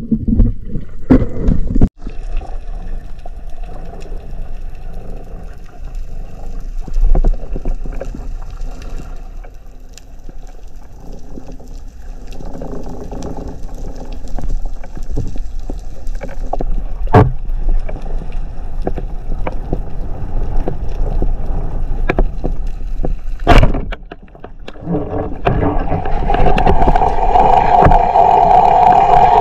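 Underwater noise picked up by a diver's camera: a steady watery hum with faint steady tones and a few sharp knocks. A louder hum comes in near the end.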